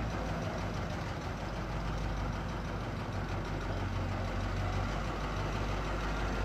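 Diesel engines of a backhoe loader and a small road roller running steadily at low speed, a continuous low hum.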